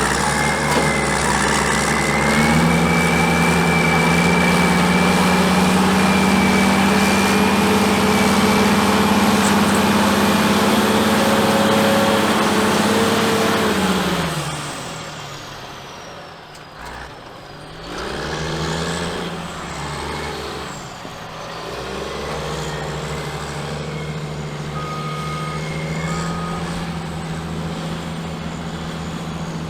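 Caterpillar 627G twin-engine scraper's diesel engines running hard at high revs, rising a little about two seconds in. About halfway through they wind down sharply, waver up and down in pitch for a few seconds, then settle to a lower, steady speed.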